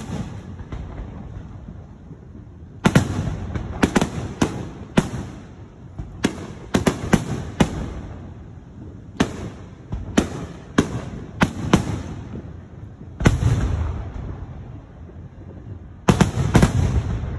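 Fireworks display with aerial shells bursting in volleys: several sharp bangs in quick succession, each cluster trailed by a low rumble, with short lulls between volleys.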